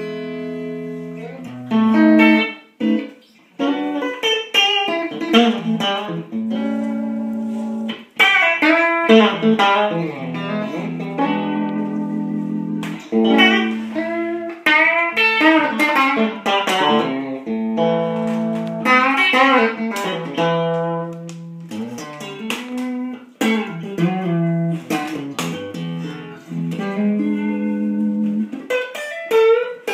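1971 Fender Telecaster Thinline electric guitar played solo: picked chords and single-note melody lines, with a few brief pauses.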